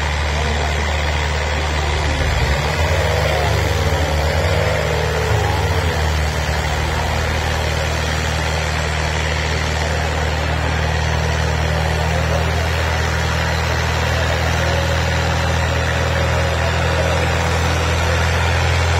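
Diesel farm tractor engine working under heavy load as it drags a disc implement through ploughed soil, a steady deep drone throughout.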